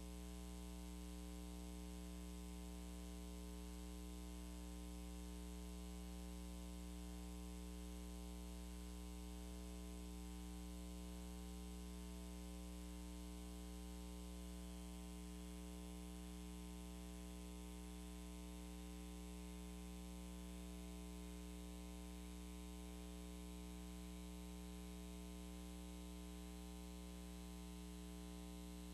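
Steady electrical hum and buzz with a constant hiss from the recording's audio feed, unchanging throughout.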